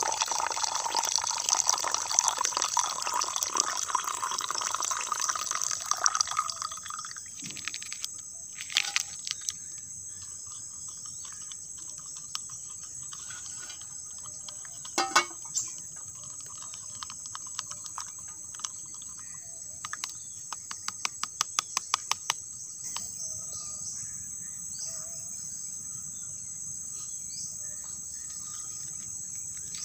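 Water running or pouring for about the first seven seconds, over a steady high-pitched chorus of crickets. After the water stops, a few scattered knocks and a quick run of clicks are heard against the insect chorus.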